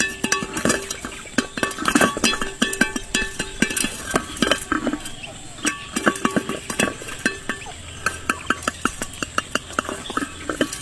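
Rapid, irregular clicking and clinking strikes over steady tones that come and go, consistent with background music with percussive hits.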